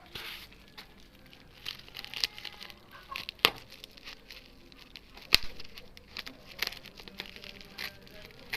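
Packaging being handled and opened: plastic crinkling and tearing with irregular clicks, and two sharper snaps about three and a half and five and a half seconds in.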